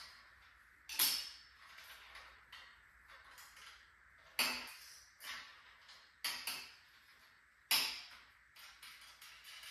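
Metal parts clinking and clanking against each other, about half a dozen sharp knocks with a short ring at irregular intervals, as a metal assembly is being taken apart.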